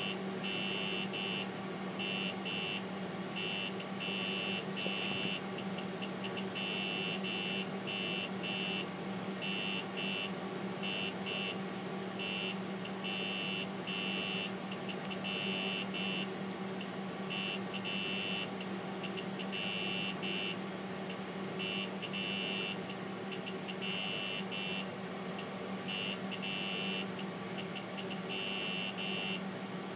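Vintage TRS-80 Model 16B computer running: a steady low electrical hum, with a high-pitched electronic whine that cuts in and out irregularly, many times over.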